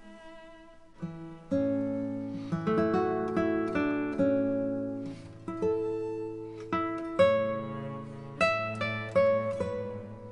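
Background music: an acoustic guitar playing plucked and strummed chords that ring and die away one after another, growing louder about a second and a half in.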